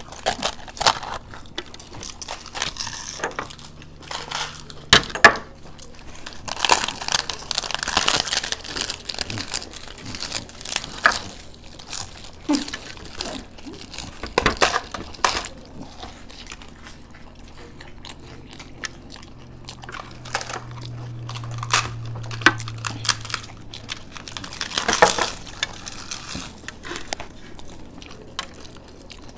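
Crisp giant fried puri (fuchka) shells cracking and crunching as several people bite into them and chew with their mouths full, in irregular crackly bursts.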